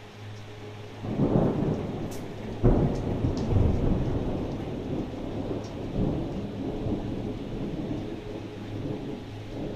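Thunder: a rumble swells about a second in, then a sharp crack near three seconds opens into a long rolling rumble that slowly dies away, with a smaller swell midway. Rain falls steadily under it.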